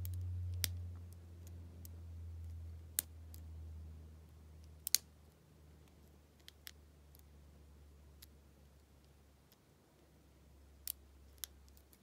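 Metal hook pick clicking against the pins inside a six-pin Abus 72/40 padlock as it is picked under light tension: scattered sharp clicks, one to two seconds apart, over a low hum that fades in the first few seconds.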